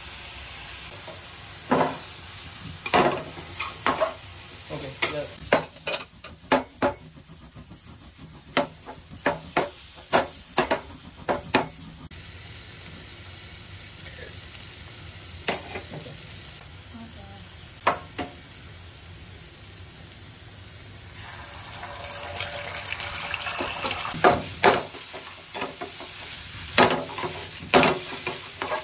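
A metal spatula clinks and scrapes against a stainless steel frying pan as vegetables are stir-fried, with oil sizzling underneath. Around two-thirds of the way through the sizzle grows louder, and more sharp scraping strokes follow as egg is scrambled in the pan.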